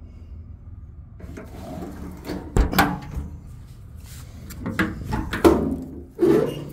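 Aluminium service-body compartment doors and latches being handled: rubbing, then several sharp clunks and clicks, the loudest about two and a half seconds in and again near the end.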